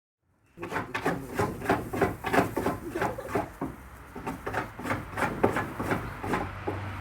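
A ram striking its hooves against a fence in a rapid run of knocks, about four a second, which is how it demands food. The knocking starts about half a second in and stops shortly before the end.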